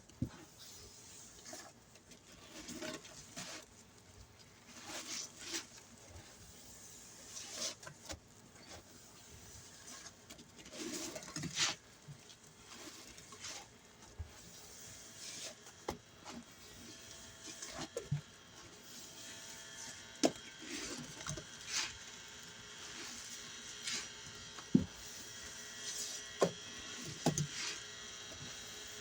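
Soapy sponge loaded with dish soap squeezed by hand, again and again: irregular wet squelches and crackling of suds. From about halfway in, a faint steady buzz runs underneath.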